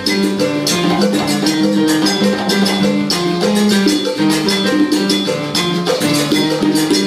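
Live salsa band playing, with a dense, steady percussion rhythm under held instrument notes.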